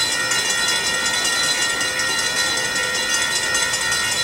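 Steady high-pitched ringing of several tones at a railway station as a train approaches, over a low rumble.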